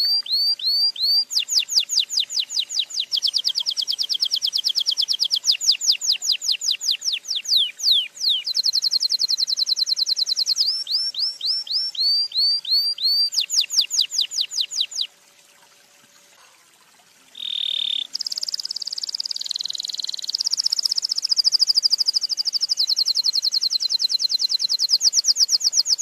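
Domestic canary singing a long song of fast trills and runs of quickly repeated high notes, switching from one pattern to the next every few seconds. It breaks off for about two seconds a little past the middle, then starts again.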